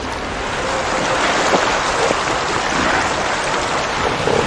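Sea water rushing and washing, a dense, steady surf sound, with wind buffeting the microphone.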